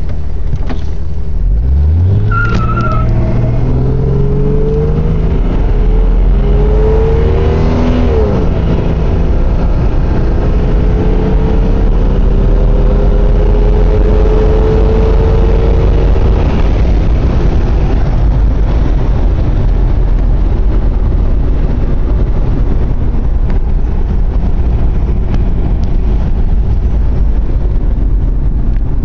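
A 1992 Jeep Cherokee's 4.0-litre straight-six engine under full-throttle acceleration from a standstill, heard inside the cabin. The engine note climbs in pitch from about a second and a half in, breaks at a gear change about eight seconds in, then climbs slowly again. About sixteen seconds in the engine note fades, leaving steady road and wind noise.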